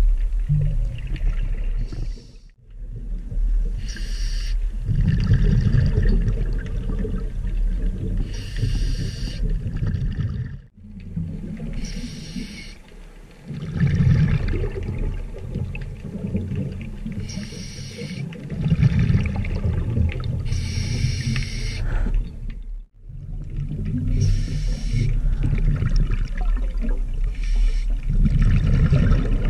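Scuba diver breathing through a regulator underwater: a hissing inhalation about every four seconds, each followed by the low rumble of exhaled bubbles.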